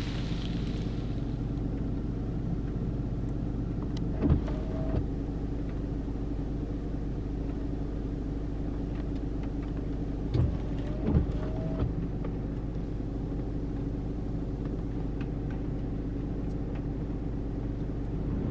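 A van's engine and road noise heard from inside the cabin while driving: a steady low drone. A few short knocks come about a quarter of the way in and again a little past halfway.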